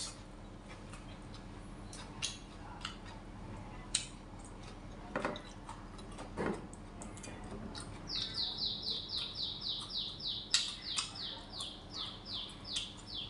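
A bird calling in a fast, even run of high chirps, each falling in pitch, about three a second, starting about eight seconds in. Before that, a spoon and chopsticks click now and then against a bowl and plates.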